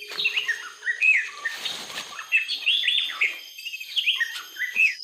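Songbirds chirping in fast, overlapping runs of short downward-sliding chirps. About halfway through there is a brief noisy rush.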